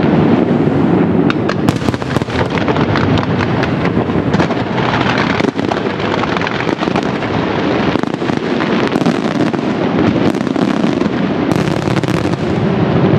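Fireworks display going off in a dense, continuous barrage of bangs and crackling reports that run together into a steady din.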